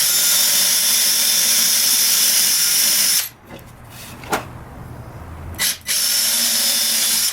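Power drill with a tapered bit boring through a wooden drawer box, run in two bursts: about three seconds, then after a pause with a click or two, about a second and a half more.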